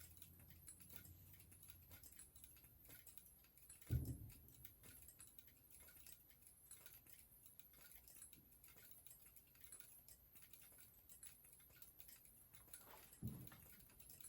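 Many fire-alarm remote strobes flashing out of sync: a faint, dense scatter of irregular clicks over a high-pitched capacitor charging whine that rises again and again. Two dull thumps of distant fireworks, about four and thirteen seconds in.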